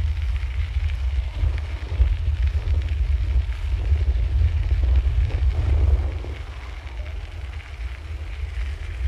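Wind buffeting the microphone while cycling: a gusty low rumble that eases off about two-thirds of the way through.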